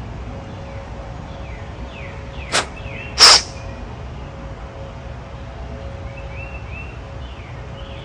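Birds chirping in the background over a steady low hum, with short falling chirps. About two and a half seconds in come two short, sharp bursts of noise, the second one louder and a little longer.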